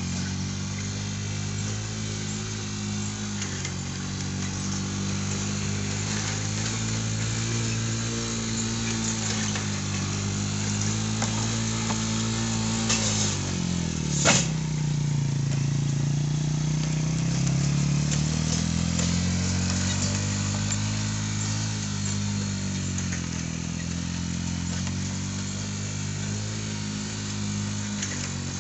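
Motor of a roping track system running steadily as it drives the roping dummy around the track, its pitch wavering. About halfway through there is a sharp snap, and the motor's pitch drops as it slows under load, then climbs back up over the next few seconds.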